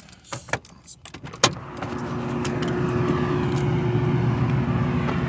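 A sharp click about a second and a half in, like a vehicle door opening, after small handling clicks. A steady engine hum with a held tone then comes up and grows louder.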